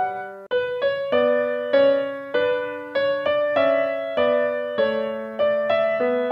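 Background music: a solo piano playing a slow melody, one struck note about every half second, with a brief break about half a second in.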